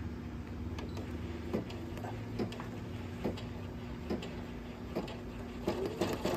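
Brother PE900 embroidery machine running: a steady low hum with sharp mechanical clicks a little more than once a second, as it stitches out the red part of an embroidery design.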